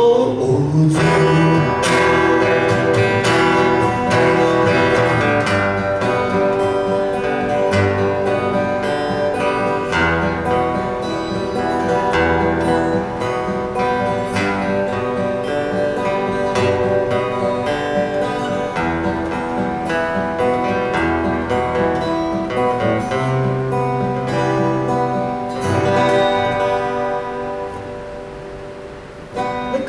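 Two acoustic guitars playing the instrumental close of a song together, without singing, dying away near the end.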